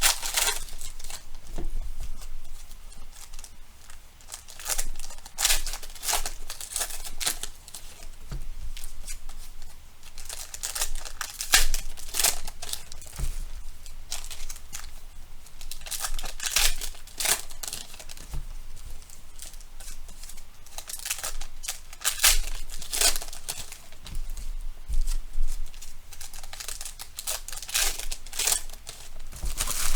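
Foil trading-card pack wrappers being torn open by hand and crinkled, with irregular bursts of tearing and rustling.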